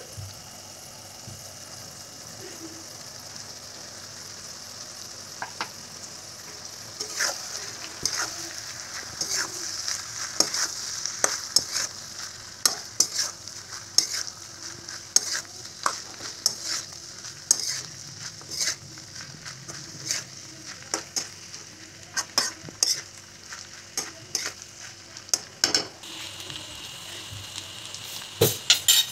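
Cooked rice and vegetables sizzling in a hot metal pan while a metal spatula stirs and tosses them. From several seconds in, the spatula's edge scrapes and clicks against the pan over and over at an uneven pace.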